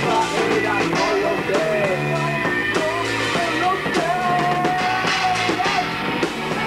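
Rock band playing live in rehearsal: electric guitar, bass guitar and drum kit, with a lead melody that bends between notes and holds one long note about four seconds in.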